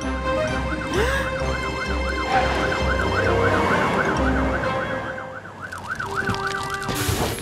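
Cartoon fire-engine siren wailing, its pitch sweeping up and down over and over at a fast rate, with a low engine rumble pulsing underneath for the first few seconds.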